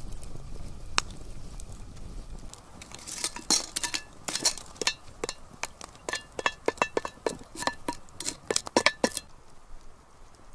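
A quick, irregular run of sharp metallic clinks with a short ring, a metal utensil knocking against a cast-iron pot, starting about three seconds in and stopping near the end. Before it, a campfire crackles over a low rumble.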